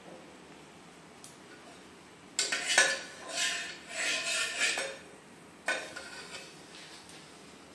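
Metal spoon scraping and clinking inside an empty aluminium pressure cooker. A run of stirring and ringing knocks lasts about two seconds from a little over two seconds in, and there is one more clink near six seconds.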